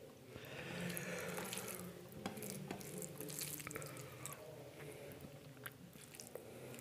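Close-miked wet eating sounds: chewing with mouth clicks and smacks, with a wetter, louder stretch from about half a second to two seconds in.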